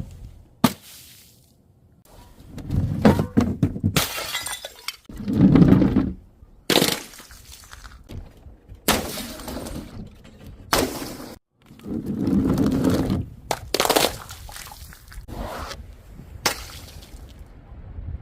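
Glass bottles smashing and shattering, a string of separate crashes with crunching and tinkling glass fragments, about a dozen over the stretch.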